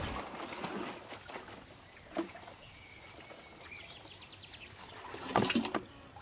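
Liquid sloshing inside a hanging wooden butter churn as it is swung, fading over the first second or so. A short knock comes about two seconds in, and a louder burst of handling noise near the end as the churn's cloth-covered opening is uncovered.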